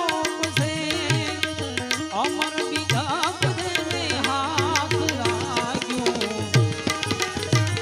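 Instrumental passage of a Gujarati devotional bhajan: tabla playing a dense run of strokes under a wavering melody line.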